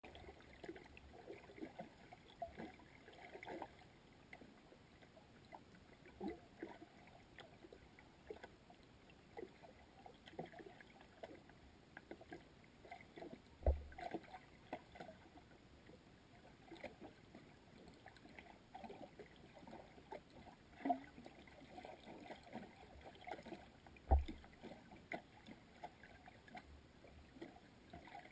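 Muffled underwater ambience picked up by a GoPro in its waterproof housing: faint, scattered small clicks and ticks, with two dull low thumps about ten seconds apart.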